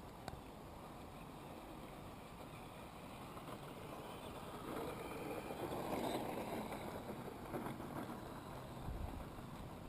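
Axial SCX10 Deadbolt electric RC crawler driving over a snow-covered track: a steady noise of motor and tyres that grows louder for a few seconds in the middle and then eases off. There is one short click just after the start.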